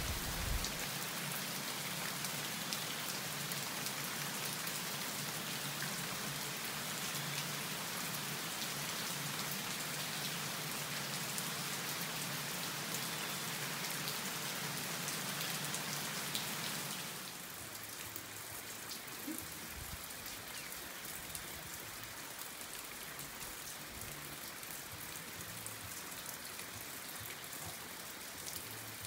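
Steady rain falling, a dense even hiss with scattered ticks of drops, which becomes a little quieter about two-thirds of the way through.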